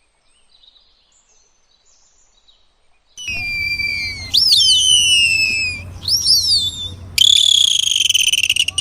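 Dolphin whistles: high-pitched rising-and-falling whistles, then a fast buzzing pulse train, over a low steady rumble. They start loud about three seconds in, after a faint stretch.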